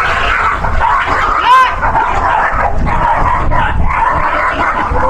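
Dogs barking and yelping over a steady low rumble, with one high rising-and-falling yelp about one and a half seconds in.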